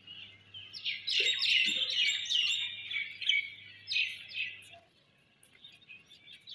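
Small birds chirping: a run of short, quick chirps that stops near the end.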